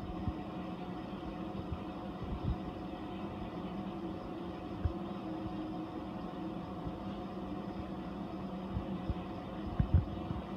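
Steady mechanical hum of reef aquarium equipment running, with a few low thumps, the strongest near the end.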